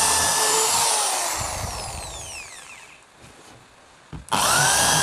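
Worx WX317.3 600 W corded drill boring into a block of wood with a wood bit. The motor whine is released and winds down, falling in pitch over about two seconds, then the drill is started again a little over four seconds in with a rising whine and runs on.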